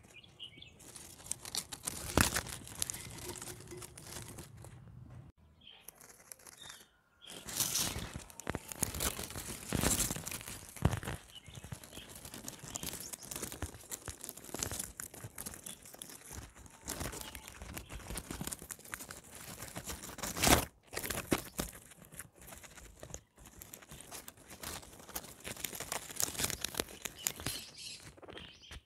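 Guinea pigs eating, tearing at and crunching greens and flowers in a dense run of crisp crackles and clicks. There is a short pause about five to seven seconds in, and a sharper crack about twenty seconds in.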